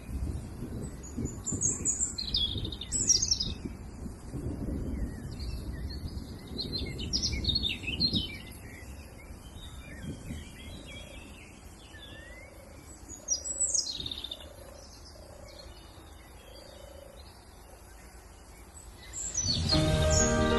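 Birds chirping and trilling in short, scattered calls, over a low rumbling noise that is strongest in the first half. Music starts near the end.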